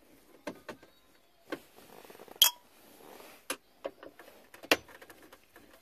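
A screwdriver working Phillips screws out of a plastic dash trim panel, heard as scattered light clicks and taps. The sharpest click, a little under halfway through, has a brief metallic ring.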